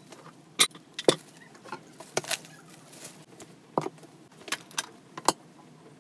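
Scattered light clicks and clinks of small hard objects being handled, about eight at irregular intervals.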